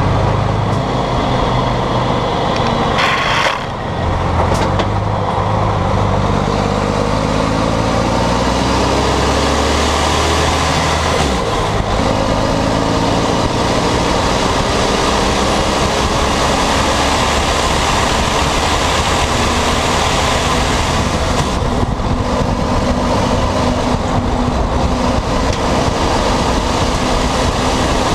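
Volvo FMX 460 truck's 13-litre straight-six diesel running loud through a broken, straight-through exhaust pipe while driving. The revs climb for several seconds, then drop sharply about eleven seconds in at a gear change, and the engine pulls steadily after that.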